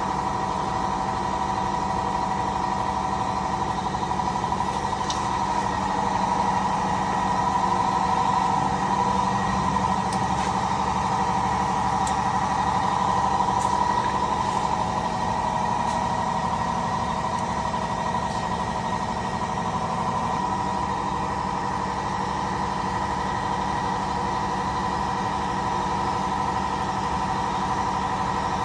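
A steady mechanical drone, like a motor or engine running at a constant speed, with an even hum that does not change, and a few faint ticks.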